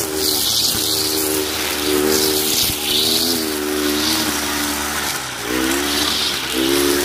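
Kawasaki TJ45 two-stroke brush cutter engine running hard, its pitch dipping and rising again several times as the cutting head works through the grass. A hiss swells with each sweep of the head through the grass.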